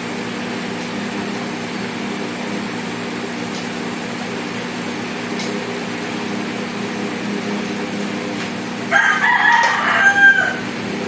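A rooster crowing once, about nine seconds in, over a steady mechanical hum.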